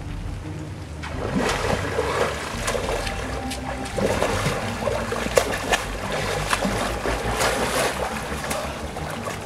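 Water splashing and churning as a swimmer's arm strokes break the surface of a pool, starting about a second in, with irregular sharp splashes.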